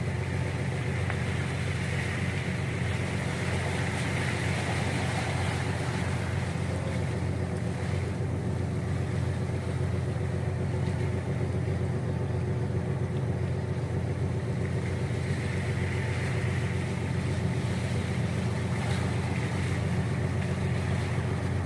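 Steady low drone of a ro-ro car ferry's engines running at a constant pace, with a faint, even hum above it.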